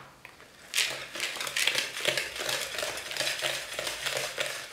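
Wire whisk stirring flour, chocolate chips and an egg-and-oil mixture in a plastic bowl: quick repeated scraping strokes that start about a second in, the first stage of working biscuit dough.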